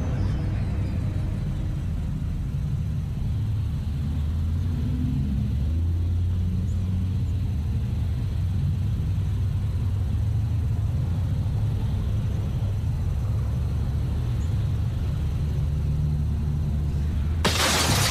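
Low steady rumble of an idling car engine, then near the end a sudden loud crash of breaking glass.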